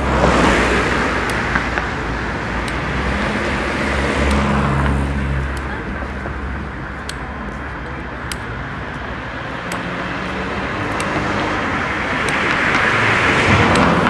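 Road traffic: vehicles passing, the noise swelling and fading, with one passing about a second in, another around four seconds in, and a third building toward the end over a steady low rumble.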